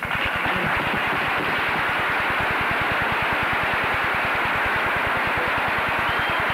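Audience applauding, starting abruptly and holding steady and loud.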